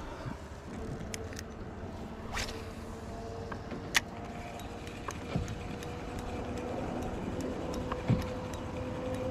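A steady mechanical hum, slowly rising in pitch, with scattered sharp clicks and knocks; the loudest knocks come about four and eight seconds in.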